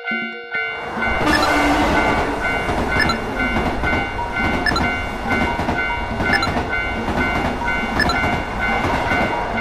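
Electric commuter train passing a level crossing. About half a second in, a steady rumble starts, with the clickety-clack of wheels over rail joints in regular paired clicks about every second. A level-crossing warning bell keeps ringing underneath.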